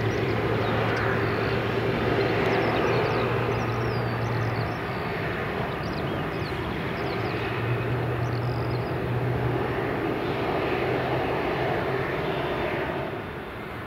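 Emirates Airbus A380-861's four Engine Alliance GP7200 turbofans running as the jet rolls out along the runway after landing: a steady jet drone with a low hum and a mid-pitched whine. The sound eases off a little near the end.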